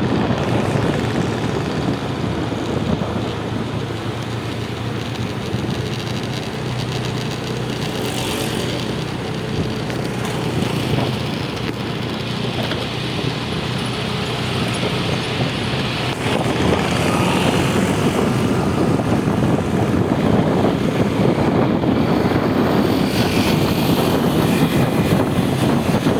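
Steady road-vehicle engine and road noise, growing somewhat louder in the second half, with no horn sounding.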